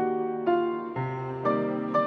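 Background music: a slow, soft piano melody, with a new note about every half second.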